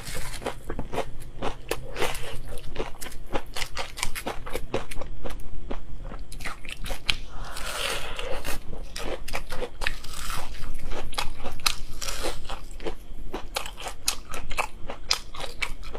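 Close-up eating sounds: crispy fried chicken being bitten and chewed, with rapid, irregular crunches and crackles of the breading.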